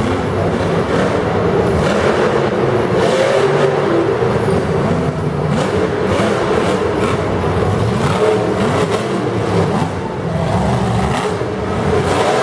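Monster truck's engine revving hard, its pitch rising and falling again and again, with a few short sharp noises now and then.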